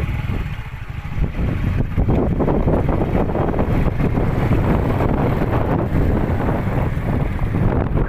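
Wind buffeting the microphone on a moving motorbike, with the motorbike's engine running underneath. The rush eases briefly about a second in.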